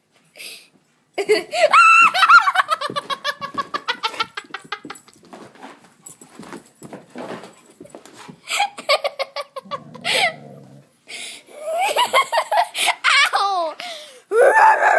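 A girl laughing hard in long, breathless bursts of high-pitched giggling, the longest run starting about a second in and more fits near the end.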